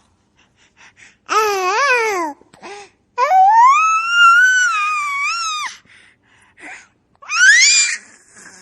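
A baby laughing and squealing in high-pitched bursts. There is a wavering giggle about a second in, then a long drawn-out squeal, short catches of breath, and a rising squeal near the end.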